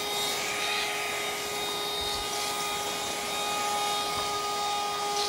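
Small cordless handheld vacuum cleaner running steadily: a constant motor whine over the hiss of its airflow. Its battery has not yet been charged.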